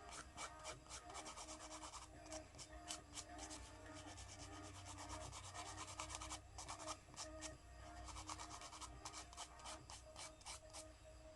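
A nail file rubbing back and forth across fingernails in quick, short strokes, faint.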